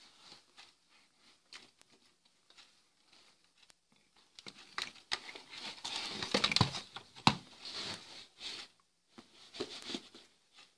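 Rustling and clicking of a car wiring harness with plastic connectors being handled and shifted about. There are light clicks at first, then a louder stretch of rustling and knocks from about halfway through, and a short burst again near the end.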